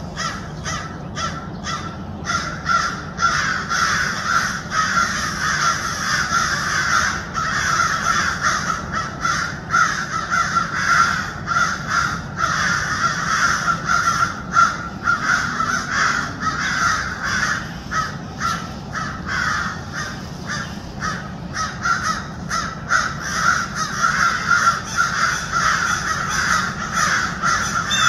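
Harsh animal alarm calls, many overlapping and going on without a break, with short sharp calls repeated rapidly throughout. They are raised at a fisher on the tree trunks.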